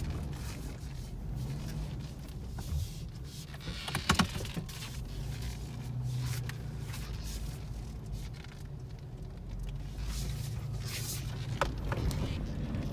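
Pickup truck engine running low and steady, heard from inside the cab, swelling a little twice, with a short sharp clatter about four seconds in.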